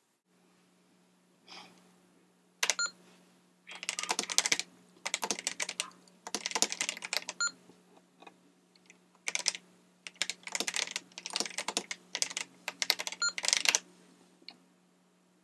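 Typing on an Apple IIe keyboard: quick bursts of clacking keystrokes with short pauses between them.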